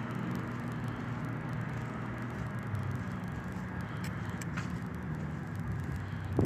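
Steady low hum of an engine running, as of a motor vehicle.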